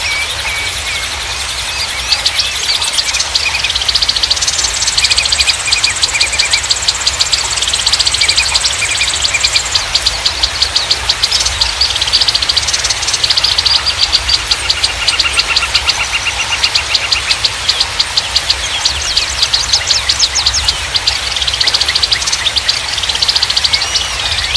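Many small songbirds chirping and trilling fast, several at once and overlapping, with high rapid chip series and some short whistled phrases, over a steady low rumble.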